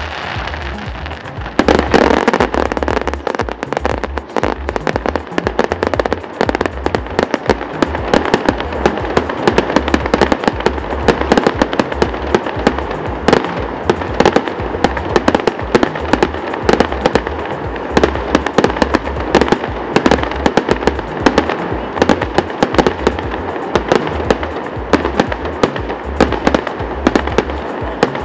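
Fireworks display: a dense, rapid barrage of bangs and crackling shell bursts that starts suddenly about a second and a half in and keeps going without a break.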